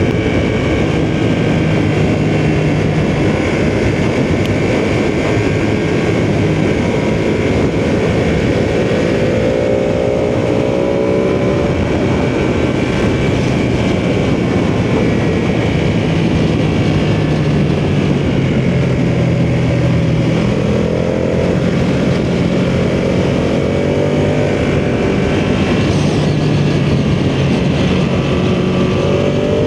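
Ducati sportbike engine running at speed under a steady rush of wind noise, its pitch climbing three times as the bike accelerates.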